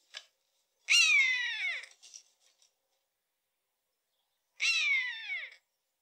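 Common buzzard (Buteo buteo) calling twice. Each call lasts about a second and falls in pitch, and the second comes about three and a half seconds after the first.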